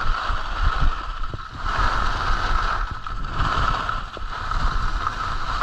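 Skis sliding and scraping over firm groomed snow, the hiss swelling and fading with each turn, over wind rumbling on the microphone.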